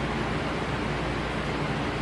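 Steady, unchanging synthetic white noise for sleep: an even hiss with more weight in the lows, thinning out in the highs.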